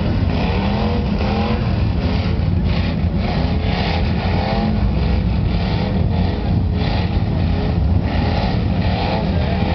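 Off-road truck engines revving, their pitch rising and falling again and again over a dense low rumble.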